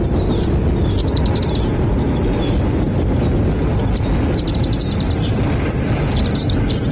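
Small bird chirps, a few short clusters of high, quick notes, over a loud steady low rumble.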